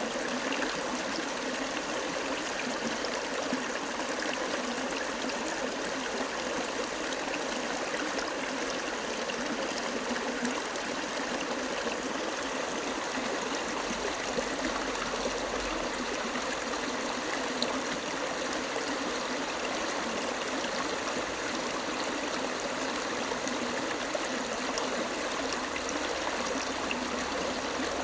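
Running water flowing steadily, a continuous even rush like a stream.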